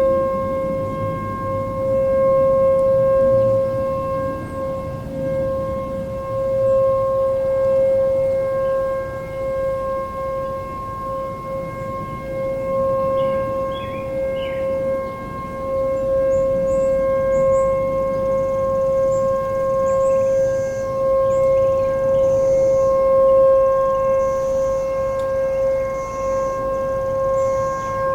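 Sentry 14V-B outdoor warning siren holding a steady tone during its monthly test, heard from about half a mile away. Its loudness swells and fades about every six or seven seconds as the rotating head sweeps past.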